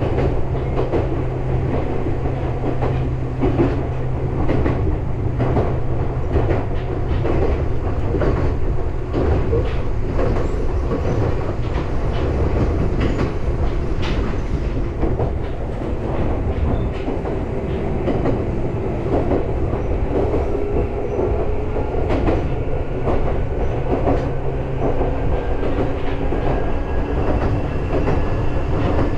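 Meitetsu electric train running, heard from inside the driver's cab: a steady rumble with wheels clacking over rail joints, and a faint whine that slowly rises in pitch over the second half.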